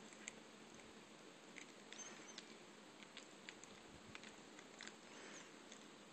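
Faint, irregular wet clicks and smacks of a cat licking and nibbling its own paw while grooming.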